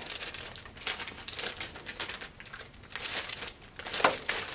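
Clear plastic polybag crinkling and rustling as hands turn over the bag wrapped inside it: short, irregular crackles, with a slightly louder crinkle about four seconds in.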